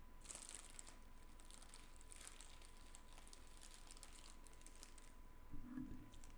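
Near silence with faint crinkling and rustling, and a brief low hum near the end.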